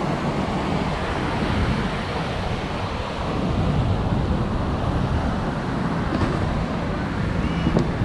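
Steady outdoor ambience of passing road traffic mixed with surf, with wind buffeting the microphone. A brief high chirp comes near the end.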